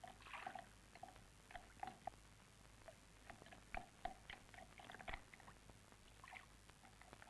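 Faint, irregular soft clicks and wet taps of a wooden spoon stirring warm water into flour in a bowl to make batter.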